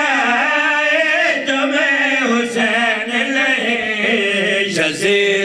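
A man's voice singing a qasida refrain into a microphone, drawing the notes out in long, wavering melismatic lines.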